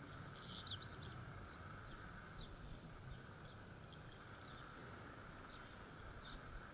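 Faint outdoor ambience with a few short, scattered bird chirps.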